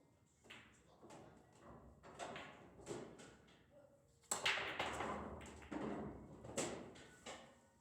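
Pool balls clacking and knocking on a pool table in a quick, irregular run of hits, the loudest clack about four and a half seconds in.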